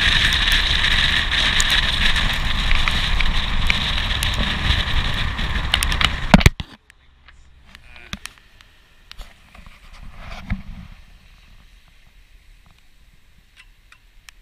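Wind rushing over a camera held out of a moving train's window, with the train's running noise beneath, loud and steady; it cuts off abruptly about six and a half seconds in. After that there is only faint outdoor background with a few small ticks.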